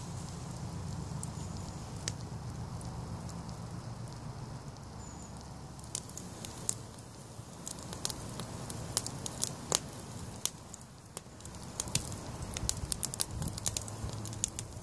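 Wood campfire crackling, its sharp snaps growing more frequent from about halfway through, over a low steady rumble in the first half.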